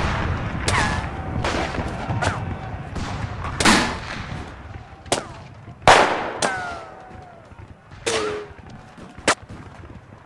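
Scattered rifle gunfire: about nine single shots spread over the stretch, the loudest about six seconds in, with a falling whine trailing a few of them. A low rumble runs under the first half and fades.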